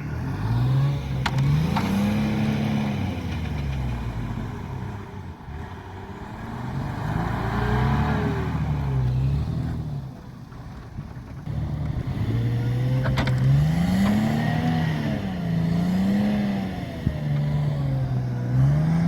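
An off-road vehicle's engine revving up and falling back several times, as it works its way over rough ground. There are a couple of sharp knocks along the way.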